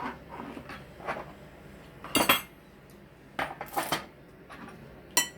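Cutlery clinking against plates and serving dishes in separate sharp, ringing clinks: a loud one about two seconds in, a cluster at three and a half to four seconds, and another near the end.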